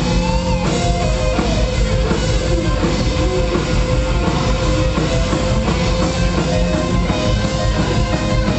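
Rock band playing live: a drum kit keeping a steady beat under guitars, with held notes running through.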